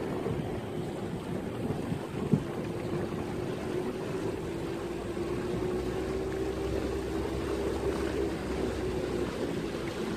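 A small boat's motor running steadily as the boat moves across the lake, a steady hum over water and wind noise. A single short knock comes about two seconds in.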